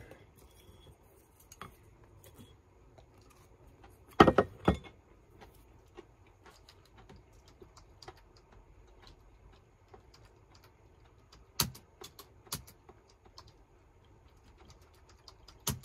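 Typing on a computer keyboard: scattered light key taps, with a quick run of louder clacks about four seconds in and a few single sharp clicks later on.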